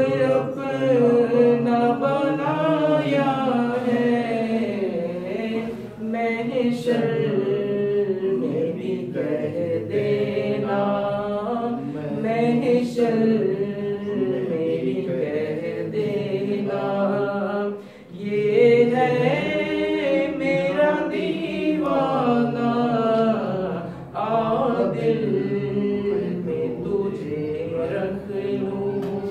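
A man singing a naat unaccompanied, in long, bending held notes, with short pauses for breath about six, eighteen and twenty-four seconds in.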